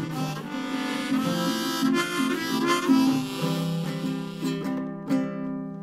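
Low C diatonic harmonica playing an instrumental closing passage over strummed acoustic guitar. About five seconds in a last chord is strummed and left ringing as the harmonica stops.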